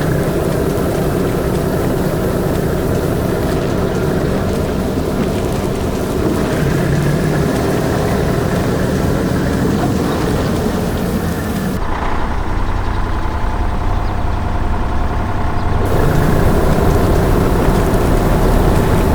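A heavy construction vehicle's engine running steadily. For a few seconds, from about twelve seconds in, the sound turns duller, with less hiss.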